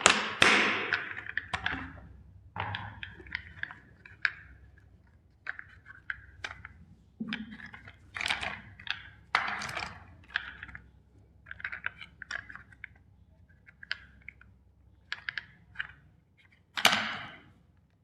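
Plastic toy vehicles being smashed with a hammer: heavy blows and cracking, crunching plastic, with bursts of small clicks as pieces break and scatter. The loudest hits come at the start, about eight to ten seconds in, and near the end.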